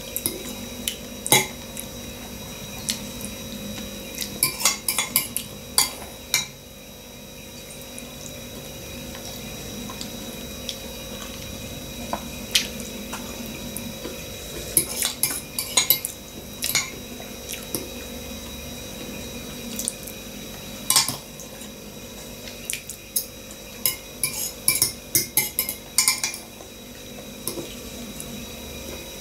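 Metal fork clinking and scraping against a bowl during eating: scattered sharp clicks, some in quick clusters, over a faint steady hum.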